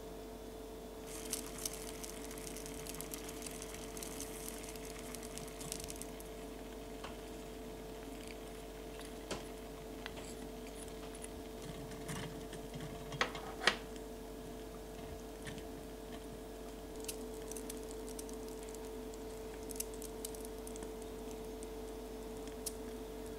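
Faint crackling and ticking of seasoned broth simmering in a tiny pot, with two sharp taps of chopsticks against the pot about halfway through.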